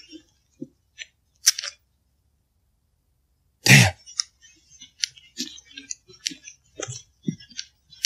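Footsteps on a forest trail: scattered short, sharp clicks and ticks of leaf litter and twigs underfoot. About four seconds in comes one loud cough from the walker. Between the sounds, and for over a second before the cough, the audio drops out to dead silence.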